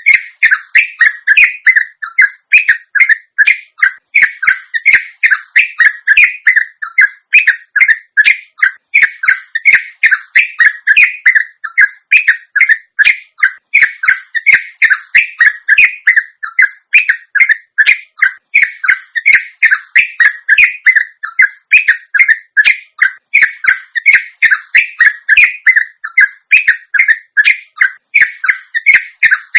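Sooty-headed bulbul (trucuk) singing a long, unbroken run of short warbling notes, several a second, without a pause: the rolling 'ropel' song used as a lure to make other trucuk answer.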